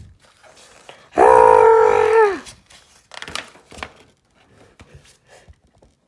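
A child's voice holding one long, loud vocal sound for about a second, its pitch dropping at the end, followed by the soft rustle and flutter of comic-book pages being flipped by hand.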